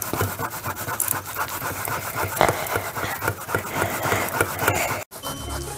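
Raw button mushrooms being grated by hand on a metal box grater: fast, repeated rasping strokes that break off abruptly about five seconds in.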